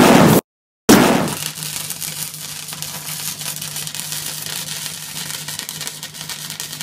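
A loud explosion blast at the start, then about a second in an electric welding arc crackling and spitting steadily over a low hum.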